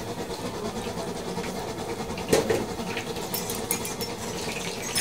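Batter balls deep-frying in a large wok of hot oil, a steady crackling sizzle, with a sharp knock about two seconds in and a few lighter clicks later.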